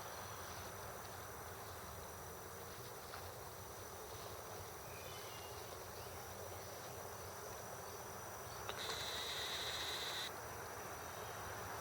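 Faint, steady hum of honeybees flying in and out of hive entrances. About nine seconds in, a click is followed by a brief higher-pitched whine lasting a second or two.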